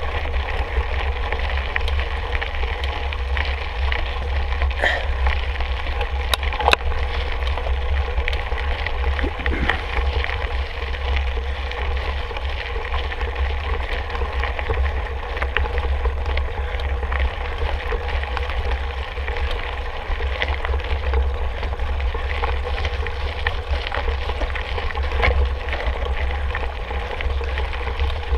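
Mountain bike riding along a trail: steady rolling noise with wind rumbling on the microphone and scattered small clicks and knocks from the bike.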